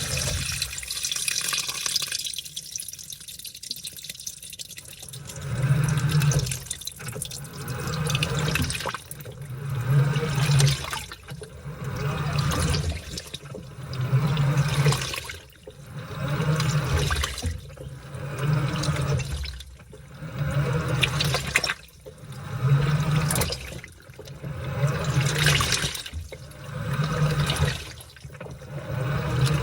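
Washing machine washing a load of laundry: water sloshing as the wet clothes are churned. From about five seconds in, the motor hums in regular strokes about every two seconds as the agitation drives the load back and forth, after a spell of steadier water noise.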